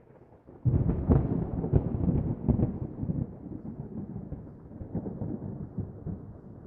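A sudden, loud, low rumble with crackling starts about a second in, then slowly dies away.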